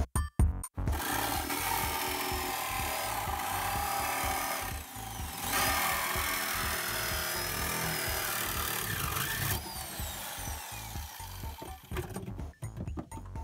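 Corded Ryobi reciprocating saw cutting through the sheet-steel body of a car. It runs in two long stretches with a short break about halfway and stops about ten seconds in.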